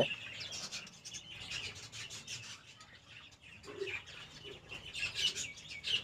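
Budgerigars chirping faintly, a scatter of short high chirps.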